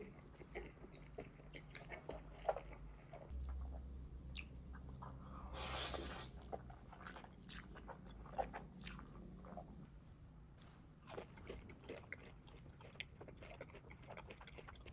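Close-miked eating sounds sped up to double speed: chewing and biting with many short crunchy clicks and crackles, and a louder crunching burst about six seconds in.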